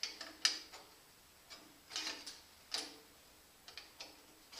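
Crescent wrench clicking and scraping on a nut as it is turned in short strokes, tightening it down; short bursts of metallic clicks come about once a second.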